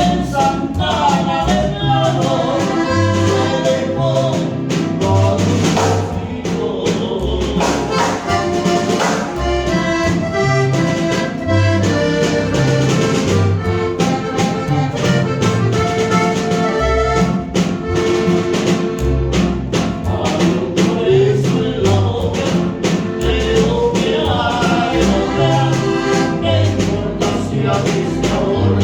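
Music from a band, with accordion and brass over a steady, repeating bass line and some singing.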